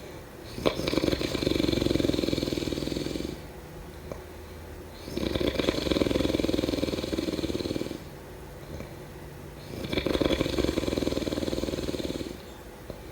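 A person snoring: three long snores of about two and a half seconds each, one about every four and a half seconds, with quieter breathing between them.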